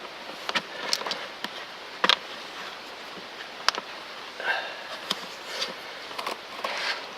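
Scattered sharp clicks and short crinkly rustles of hand work under the hood, as vinyl electrical tape is wrapped around a loose engine hose.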